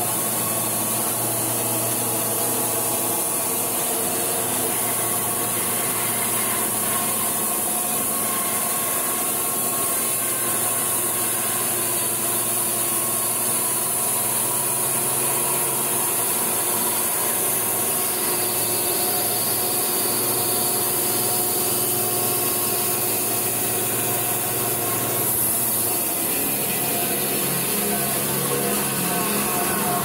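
Logosol B751 Pro portable band sawmill cutting along a log: the motor and band blade run steadily, with the hiss of the blade ripping through the wood.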